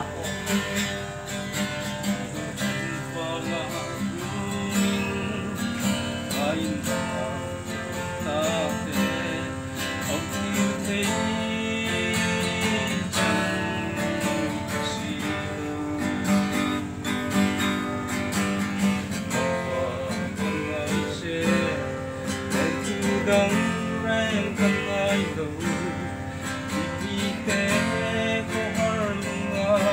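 Acoustic guitar strummed steadily in chords while a man sings along.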